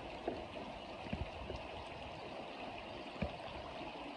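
Shallow creek water running steadily over rocks, with a few small knocks or splashes, the loudest a little after three seconds in.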